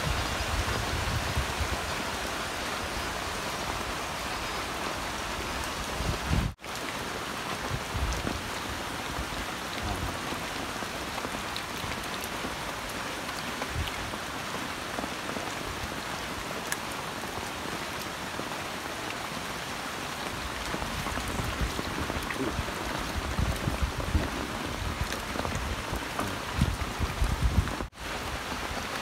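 Steady rain falling on shallow muddy water and wet leaves, a continuous patter. It cuts out abruptly twice, briefly, about six seconds in and near the end.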